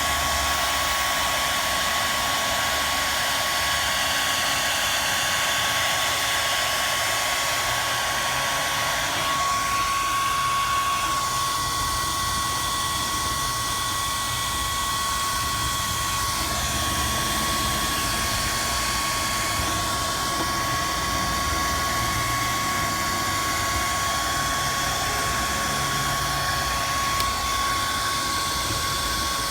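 Heat gun blowing steadily, with a constant whine over the rush of air, warming leftover emblem adhesive to soften it for removal.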